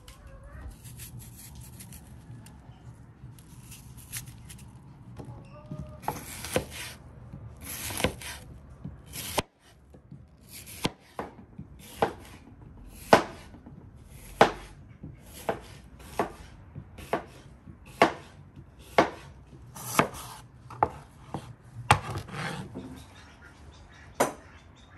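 Kitchen knife slicing apples on a wooden cutting board, the blade knocking sharply on the board about once a second from about six seconds in, with softer cutting and scraping before that.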